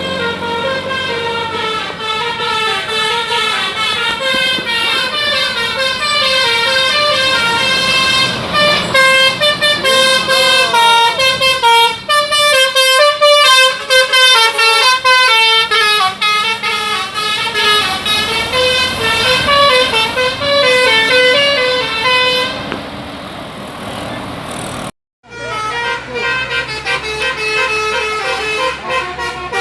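Indonesian bus's telolet basuri multi-tone horn playing a fast tune of short stepped notes, over and over. It cuts off suddenly about 25 seconds in and another horn tune starts.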